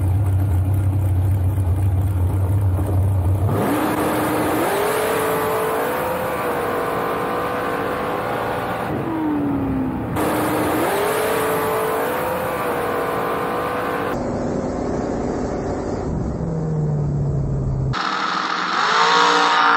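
Bracket dragster's engine: a steady low idle on the starting line, then about three and a half seconds in it launches and climbs quickly in pitch to high revs. About nine seconds in the pitch drops, then climbs again. From about fourteen seconds it runs steadier and lower.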